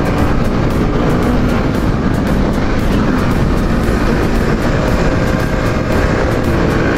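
Bajaj Pulsar RS200's single-cylinder engine running at speed on the move, under a steady rush of wind noise on the camera's microphone.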